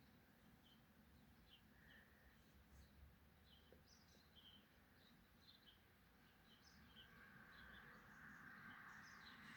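Faint, quiet birdsong: short high chirps scattered all through, over a low background rumble, with a faint hiss building near the end.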